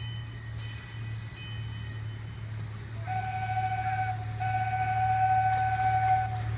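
Miniature park train locomotive sounding its whistle twice, a steady single-pitched blast about a second long starting about three seconds in, then a longer one of about two seconds. A few bell strokes ring in the first couple of seconds, over the steady low hum of the locomotive running.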